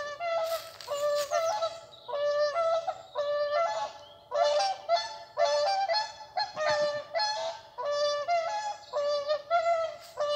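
Geese honking: a steady run of short, repeated honks, often stepping up in pitch within a call, with several birds calling over one another almost without a pause.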